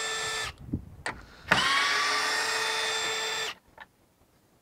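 Hilti 12-volt cordless screwdriver whining at steady speed in two runs on the fasteners at a truck's headlight. The first run stops about half a second in. After a couple of short clicks, a second run winds up about a second and a half in, holds steady for about two seconds and stops suddenly.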